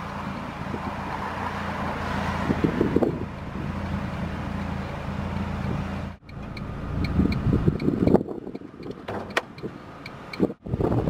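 2005 Ford Fiesta ST's 2-litre four-cylinder engine running steadily, with wind noise on the microphone. The sound breaks off abruptly about six seconds in and is followed by a more uneven running sound with faint, regular light ticks.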